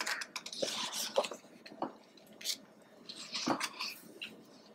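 Pages of a thick photobook being turned and handled, with soft paper rustles and a few light taps.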